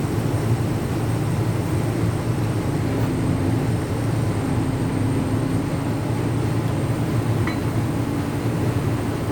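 Steady low mechanical rumble from a running machine, unbroken throughout, with a faint tick about seven and a half seconds in.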